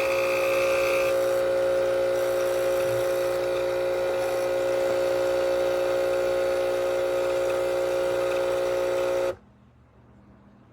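ChefWave Káva capsule espresso machine brewing, its pump running with a loud, steady hum that cuts off suddenly about nine seconds in as the shot finishes.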